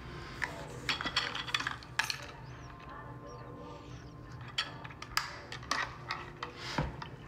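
Scattered light clicks and clinks of small hard objects handled at a desk. There is a cluster of sharp ones from about half a second to two seconds in, and more in the second half.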